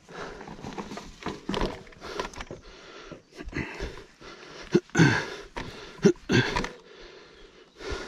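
A man breathing hard in irregular heavy breaths and pants, out of breath from a long uphill ride, with two louder gasping breaths about five and six seconds in.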